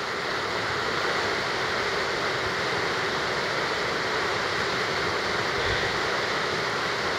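River rapids: the steady, unbroken rush of whitewater running over rocks.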